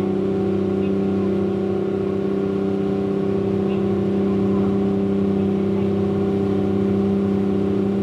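Small passenger ferry's engine running steadily as the boat gets under way, a constant low drone with a strong hum.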